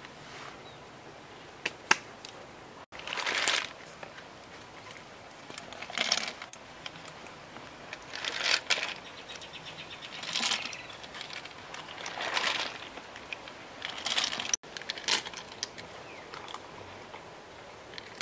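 Lotus leaves rustling and crackling as hands press and arrange them inside a glazed clay jar. The sound comes in short bursts roughly every two seconds, with a couple of sharp clicks about two seconds in.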